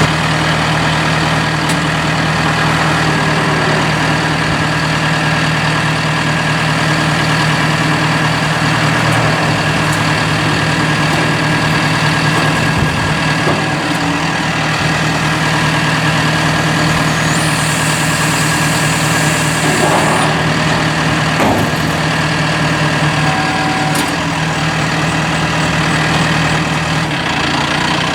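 A tractor engine running steadily, driving a Massey Ferguson 1745 round baler in gear through its 540 PTO shaft, with the baler's belts and rollers turning. A few sharp knocks are heard in the second half, along with a short stretch of hiss.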